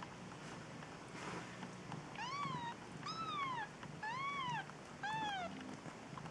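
Eight-day-old kitten mewing: four high, thin calls about a second apart, each rising and then falling in pitch.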